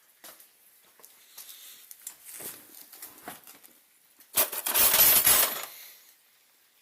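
Metal hand tools clinking, then a loud clatter of tools rattling together for about a second and a half, a little after the middle.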